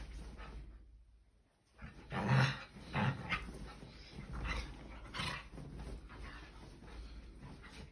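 Duvet rustling in irregular bursts as a Scottish terrier digs and noses into the bedding, with a couple of short low growls, loudest a little after two and three seconds in.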